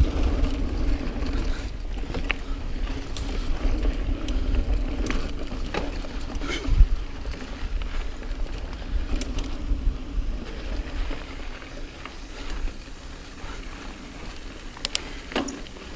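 Niner EMD 9 hardtail mountain bike being ridden over dirt singletrack: steady tyre noise and wind rumble on the microphone, with the bike rattling and clacking sharply over bumps a few times, the biggest knock about seven seconds in.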